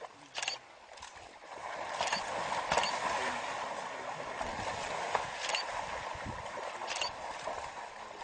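Rushing river water, a steady hiss, with a few short sharp splashes.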